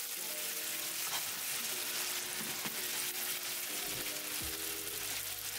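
Spaghetti sizzling in a frying pan of hot rendered guanciale fat with pasta water just added: a steady frying hiss.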